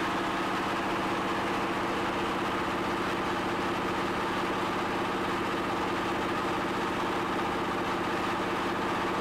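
Stationary engine running steadily under load as it drives a briquette extruder press that pushes out a continuous log of biomass briquette, with a fast, even throb to its note.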